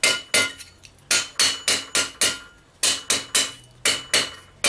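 Hammer striking a broad, rounded steel chisel held against a steel hinge barrel on the anvil, a quick run of sharp metallic blows about three to four a second with a short pause midway. The chisel is tamping down and crisping the edge of the hinge barrel.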